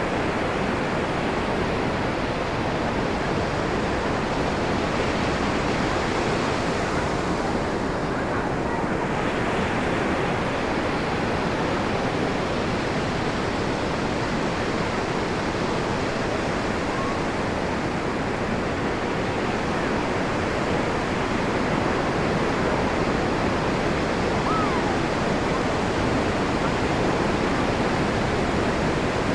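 Ocean surf breaking and washing up the beach: a steady rushing wash of water. The hiss thins briefly about eight seconds in.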